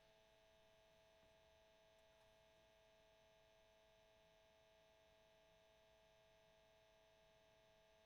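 Cassette tape motor running: a very faint, steady hum with one clear tone above it, unchanging throughout.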